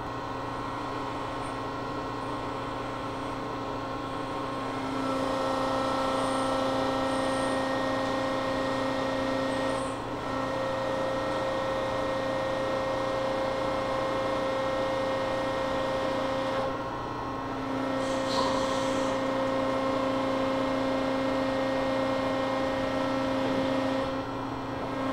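An 18" x 72" Landis universal cylindrical grinder running under its hydraulics, a steady machine hum with a held whine, while the table traverses back and forth. The sound dips briefly about every seven seconds as the table reverses.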